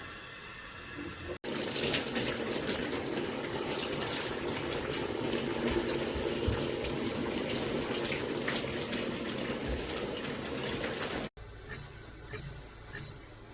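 Tap water running and splashing, starting abruptly about a second and a half in and cutting off suddenly near the end.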